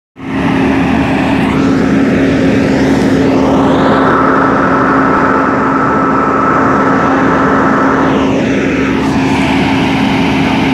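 Semi-truck's diesel running at a steady idle close by: a loud, even drone with a steady hum.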